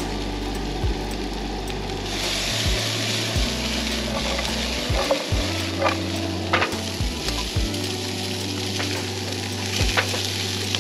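Broccoli and other vegetables sizzling and frying in a skillet on a two-burner camp stove; the sizzle grows louder about two seconds in. A few short knocks come from the pan being shaken and a spatula stirring.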